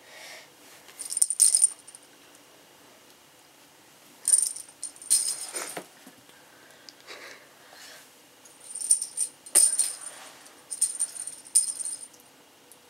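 Bell inside a plastic lattice cat-toy ball jingling in three bursts of quick rattling, with pauses between.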